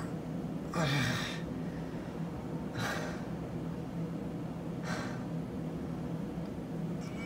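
A man's pained gasping breaths, three of them about two seconds apart, over a steady low hum.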